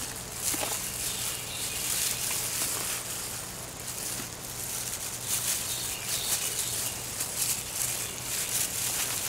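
Hands digging through the loose soil of a potato container, giving an irregular rustling and crunching, over a steady low hum.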